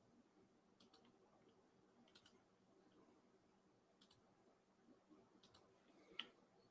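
Near silence: faint room tone with a handful of small, scattered clicks.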